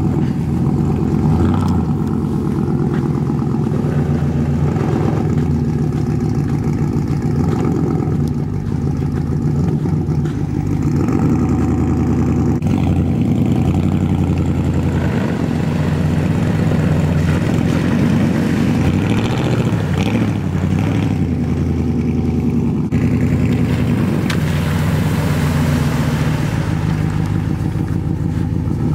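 Lifted Chevy Silverado Z71 pickup's engine running and revving up and down as it drives across sand and shallow river water on mud tyres. A rushing hiss joins in for a few seconds near the end as the truck goes through the water.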